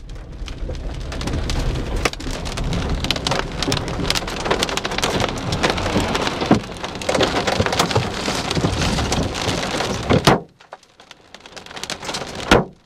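Large hailstones, up to baseball size, pounding a vehicle in a dense clatter of hard impacts with louder cracks among them. The clatter cuts off abruptly about ten seconds in, and one more loud bang comes near the end.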